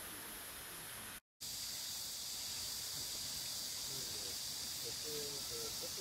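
Steady high-pitched summer insect chorus, dropping out for a moment about a second in. Faint distant voices come in near the end.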